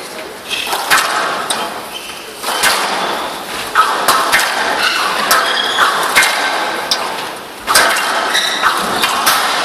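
Squash rally: the ball is struck by rackets and hits the walls, with a sharp crack roughly every second. Short, high squeaks of shoes on the court floor come between the hits.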